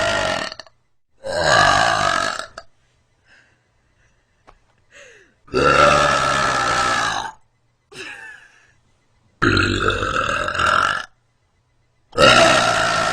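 A woman's deep belches, one after another: the tail of one at the start, then four long belches of about one and a half to two seconds each, coming every three to four seconds, the last still going at the end. Faint short sounds come between them.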